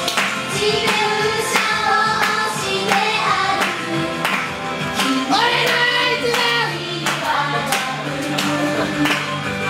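Female idol group singing an upbeat J-pop song over a backing track with a steady beat of about two hits a second.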